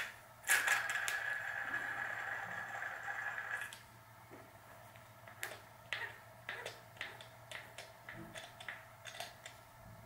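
A steady scraping, whirring sound for about three seconds as bottom bracket bearing parts are worked together, then scattered light metallic clicks and taps of parts and tools being handled.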